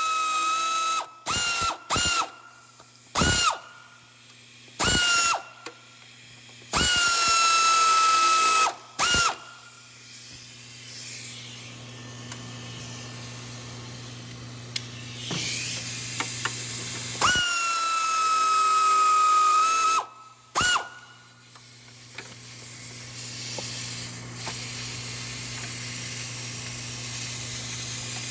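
Pneumatic air ratchet running the starter mounting bolts of a BMW 535i in short trigger pulls: a whining air motor that spins up and winds down with each pull, about eight times, two of them held for two to three seconds. A steady low hum sits underneath in the second half.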